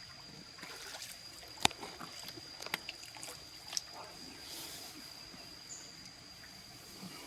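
Small waterfall pool trickling and lapping, with a few sharp clicks or splashes, the loudest about one and a half seconds in. A steady high-pitched insect call runs under it.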